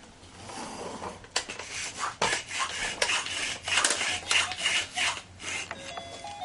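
Irregular rubbing and scraping, a scratchy scuffing of plastic and hands against a wooden floor or the camera body. Near the end a toy's electronic tune of stepped beeping notes starts up.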